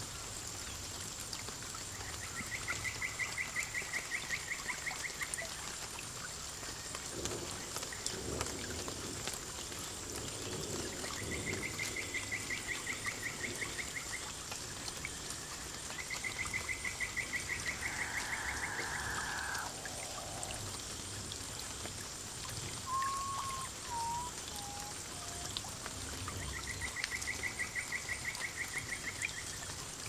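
Water trickling and splashing steadily from a small paludarium waterfall. Over it, a fast pulsed trilling call sounds four times, each bout about three seconds long, and a short series of falling whistled notes comes near the end.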